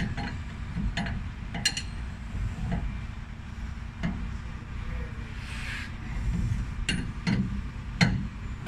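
Scattered light metallic clicks and clinks from wrenches and steel hydraulic fittings being handled, about eight over the stretch, over low rumbling and rustling handling noise from the hand-held phone brushing cloth.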